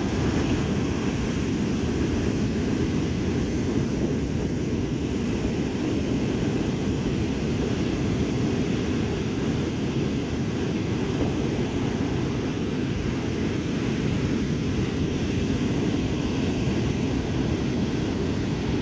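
Stormy sea surf with wind: a steady low rush that never breaks or changes.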